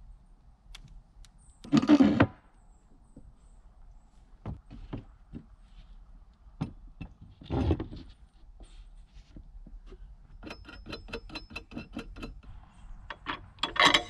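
Plywood and tools being handled on a homemade wire spool: two heavy wooden thumps with scraping, scattered knocks, a quick even run of about a dozen clicks, and a few sharp knocks near the end.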